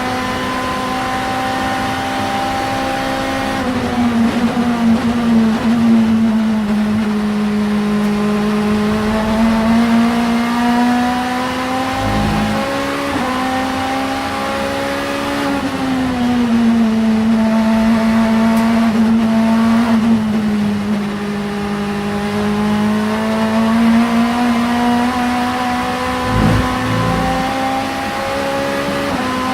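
Vauxhall Vectra supertouring race car's engine running at high, fairly steady revs, its pitch sagging and climbing back slowly several times rather than stepping through gear changes. Two short low thuds come about twelve seconds in and again near the end.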